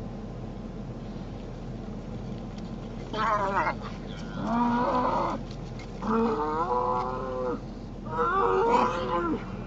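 Bull bellowing: four long, wavering calls, the first about three seconds in, over a steady low background noise.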